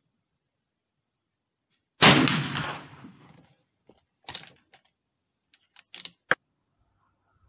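A single shot from a Martini-Henry falling-block rifle firing a .577/450 cartridge, about two seconds in: a loud crack that trails off over about a second and a half. Afterwards come several short metallic clicks and clinks as the breech lever is worked.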